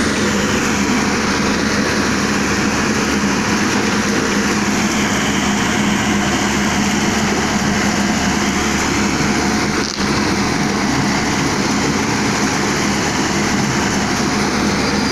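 Excavator's diesel engine running steadily at work, with a brief dip in level about ten seconds in.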